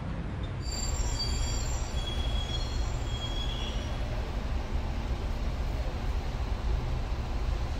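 Steady low rumble of city street traffic, with faint high-pitched squeals during the first few seconds.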